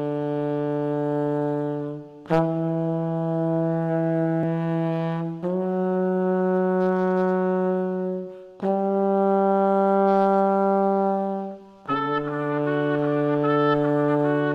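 Horn section of trombone, trumpet and tenor saxophone playing long held chords, each sustained about three seconds with short breaks between; about twelve seconds in, a quicker, higher line starts moving over the held notes.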